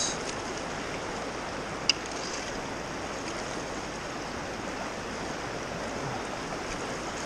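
Steady rush of river water flowing past, with a single brief click about two seconds in.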